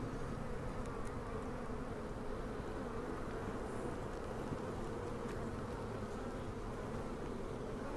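A honeybee colony buzzing in a steady, even hum around an open hive during a frame inspection.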